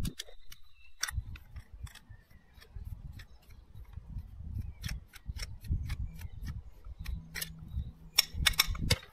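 Irregular small metallic clicks and scrapes of a screwdriver working a jet out of a Trabant carburettor body, with tools clinking on the workbench, over a low rumble. The clicks come thicker near the end.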